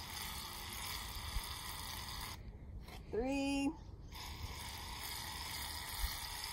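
Aerosol shaving cream can hissing as foam is sprayed into a measuring cup. The spray cuts out briefly twice around the middle, and a short hummed voice sound comes between the two breaks.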